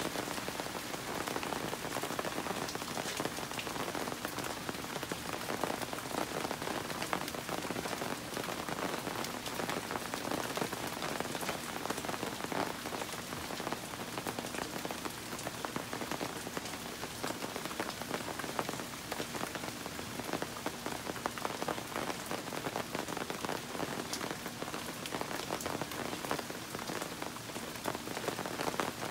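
Steady rain falling on trees, shrubs and a wooden deck: an even hiss thick with the patter of individual drops.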